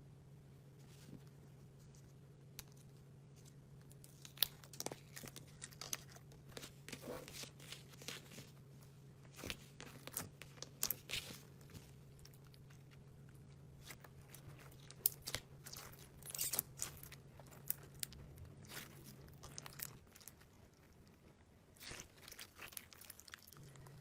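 Slime being squeezed and pressed by hand, giving faint irregular crackles, clicks and small pops.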